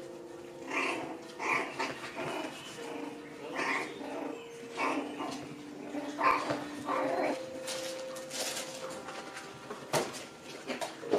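Poodle puppies yipping and giving short barks and growls in quick succession as they play-fight, one short call after another.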